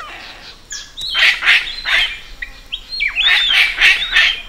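Palm cockatoo giving two harsh screeching calls, each about a second long, the first about a second in and the second about three seconds in, with a few short whistled notes between them.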